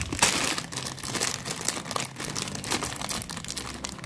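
Plastic wrapper of an Indomie Mi Goreng instant-noodle packet crinkling irregularly as it is handled and torn open near the end.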